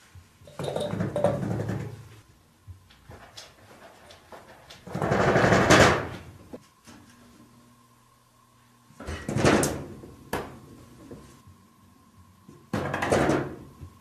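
Wooden-framed paper sliding door rattling and scraping in its track as a cat paws at it. The sound comes in four separate bursts, the loudest about five seconds in.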